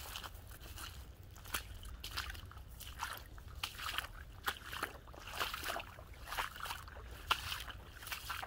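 Footsteps on a waterlogged, muddy forest trail, wet squelches and splashes at a steady walking pace of about two steps a second.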